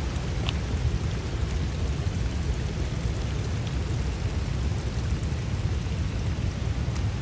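Waterfall's steady rush of falling water, heaviest in the low end.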